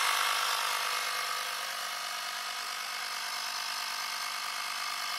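GoMechanic Gusto T10 portable tyre inflator's compressor running steadily as it pumps up a car tyre: a dense mechanical buzz. It grows a little quieter over the first two seconds, then holds level.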